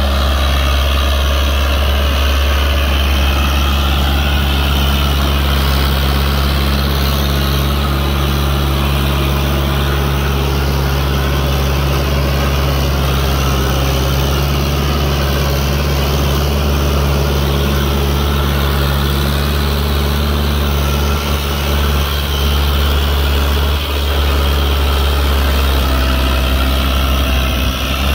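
Fiat 640 DT tractor's four-cylinder diesel engine running steadily while the tractor works a reversible plough.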